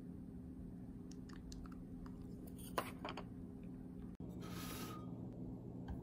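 Scattered small clicks and light taps over a steady low hum, with one sharper click just before the middle. A short hiss of about half a second follows a sudden cut a little after four seconds in.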